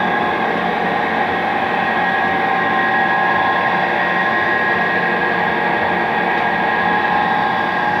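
Polamco Tarnow TUJ-50M engine lathe running steadily under power, a drive hum with a steady high whine over it.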